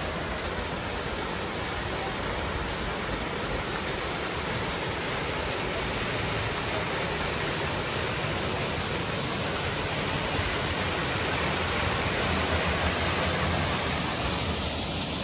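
Water spilling through the leaking wooden gate of an old stone canal lock into the lock chamber: a steady rushing, easing a little near the end.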